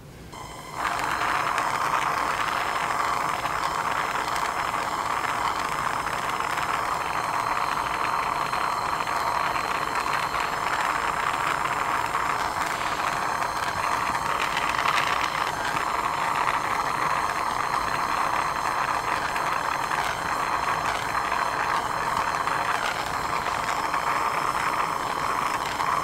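Soldering torch flame hissing steadily while heating a silver ring to flow the solder; the hiss starts about a second in.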